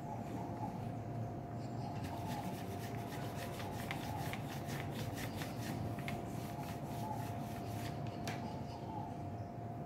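Graphite pencil scratching across drawing paper in quick repeated shading strokes, starting about two seconds in and stopping near the end, over a steady background hum.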